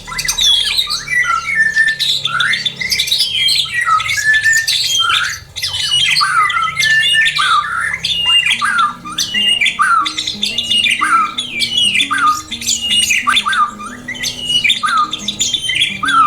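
Caged songbirds calling and singing rapidly, with quick repeated notes that slide up and down. Soft background music comes in about halfway through.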